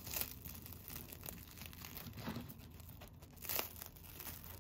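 A thick slice of toast being torn apart by hand: faint crackling and tearing as the crisp crust splits and the soft crumb pulls apart. A few louder crackles stand out, the strongest about three and a half seconds in.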